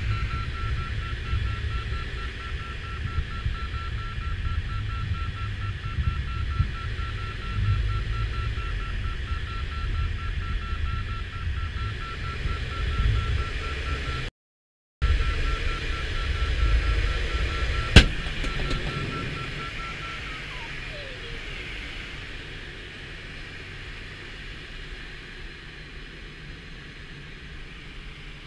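Airflow noise rumbling over a K13 glider's canopy in flight, with a rapidly pulsing electronic beep at one steady pitch from the audio variometer. About two-thirds through, just after a sharp click, the beeping stops and a tone slides down in pitch as the wind noise eases.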